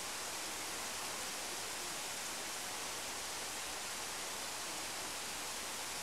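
Waterfall: a steady, unbroken rush of falling water, with more hiss than rumble.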